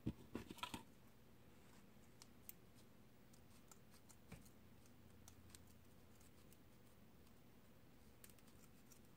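Near silence with faint rustles and small clicks of wire-edged burlap ribbon being handled and twisted into a bow. There is a quick cluster of louder clicks at the start.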